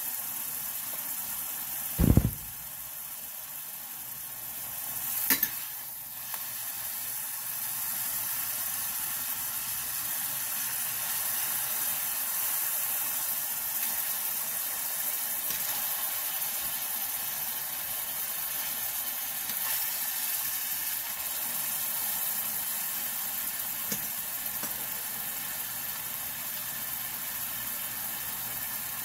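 A beef roast sizzling steadily as it browns in hot olive oil in a stainless steel frying pan. A dull thump about two seconds in is the loudest sound, and a short sharp clack follows a few seconds later.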